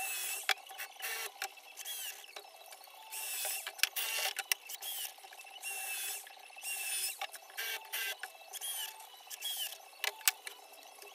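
Power drill run in a dozen or so short bursts as it works into the side of a chipboard cabinet panel, each burst with a short whine that dips in pitch, and a few sharp clicks between bursts.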